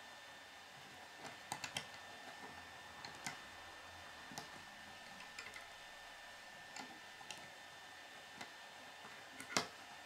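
Small plastic Lego pieces clicking and snapping as they are turned and pressed into place by hand: scattered sharp clicks, a quick run of three about one and a half seconds in, and the loudest click near the end. A faint steady high whine runs underneath.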